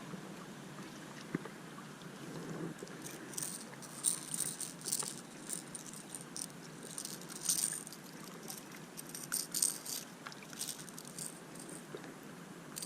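Irregular spurts of high, rapid rattling and clicking starting about three seconds in: a Cordell Spot lipless crankbait and its treble hooks clattering as a hooked white bass thrashes while being landed.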